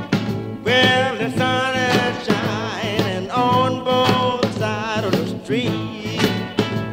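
Background music: a song with a singing voice over instruments and a steady beat. The voice sings through most of it, holding long notes.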